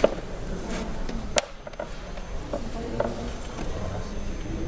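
Locking floor planks knocking and clicking against each other and the floor as a plank is laid and pressed into the row by hand: a few separate wooden knocks, the sharpest about a second and a half in.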